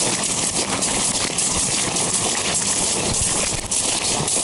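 Rubber boots stepping over wet, slushy ice, with faint scattered footfalls over a steady hiss.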